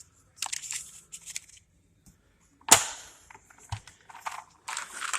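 Handling of a tool case holding an extractor and drill bit set: scattered clicks and rattles, with one sharp snap or knock about two and a half seconds in, the loudest sound.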